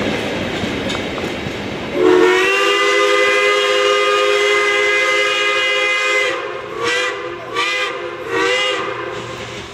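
Steam locomotive whistle sounding a chord of several notes, sliding up in pitch as it opens. It gives one long blast of about four seconds, then three short toots. Before it there is the steady rushing noise of a moving train.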